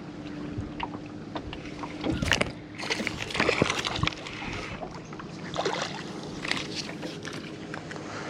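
Water splashing and sloshing beside a small fishing boat as a small hooked fish is brought in, with scattered knocks and clicks over a faint steady hum.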